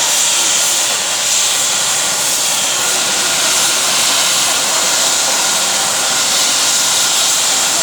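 Helicopter running close by: a loud, steady rushing hiss of turbine and rotor with a faint high whine.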